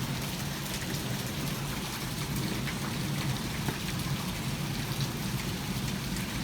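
Heavy thunderstorm rain falling steadily, with scattered individual drops striking close by.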